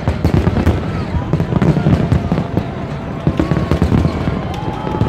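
Aerial fireworks display: shells bursting in quick succession, with many sharp cracks over a dense rolling run of booms.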